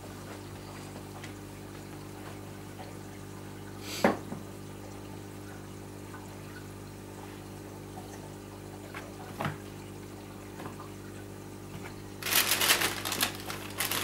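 Steady hum of a reef aquarium's circulation pumps, with water trickling and pouring. There is a sharp knock about four seconds in and a smaller one about halfway through. Near the end comes a loud burst of rapid clicks and clatter.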